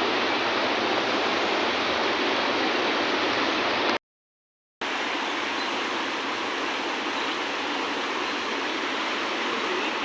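Steady rush of flowing river water. It cuts out completely for under a second about four seconds in, then carries on slightly quieter.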